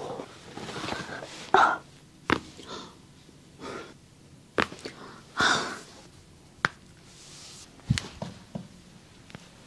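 Several sharp joint cracks a second or two apart as the body is manipulated in a chiropractic-style adjustment. Between them come loud breathy exhales and gasps, the loudest about one and a half seconds in and again about five and a half seconds in.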